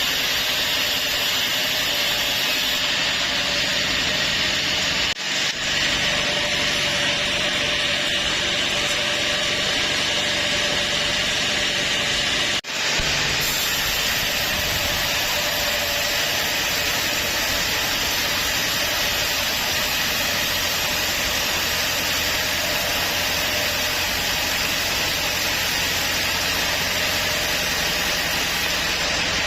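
Band sawmill running: a steady machine noise with a strong hiss, cut off for an instant twice.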